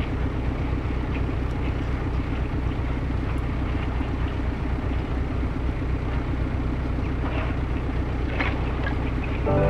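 Narrowboat's diesel engine running steadily as the hull pushes through thin canal ice, with the ice crackling against the hull, a few sharper cracks near the end.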